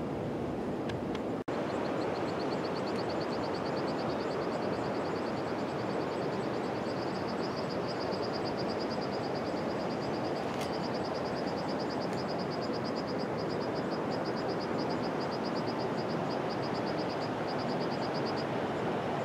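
Steady rush of a waterfall's falling water. From about two seconds in until near the end, a rapid, high-pitched pulsing trill runs over it.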